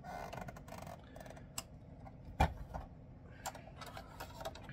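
Faint clicks and small scrapes of a screwdriver rocking a pin connector port loose from the circuit board of a Philips M3001A monitor module, with one sharper click about halfway through.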